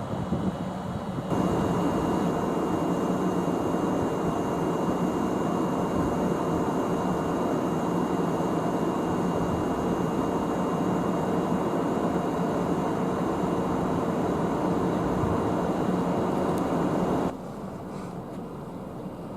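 A steady mechanical running noise: an even rush with a faint low hum and a thin high steady tone in it. It starts abruptly about a second in and cuts off suddenly near the end.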